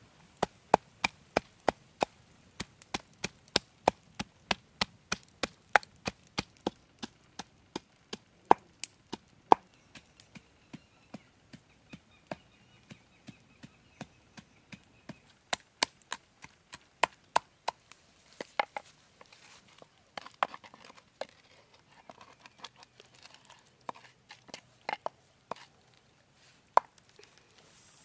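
Wooden pestle pounding chili and spices in a wooden mortar: sharp knocks at about two a second, strongest at first and growing softer and more irregular in the second half.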